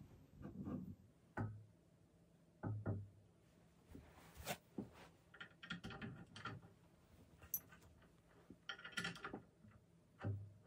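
Faint handling noises of a spin bike's handlebar and bolts being fitted by hand: scattered knocks and a few dull thunks, with two short clattering spells about six and nine seconds in.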